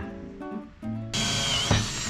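Cordless drill boring a countersink hole into a wooden board, starting a little past halfway through with a steady whine. Acoustic guitar background music plays throughout.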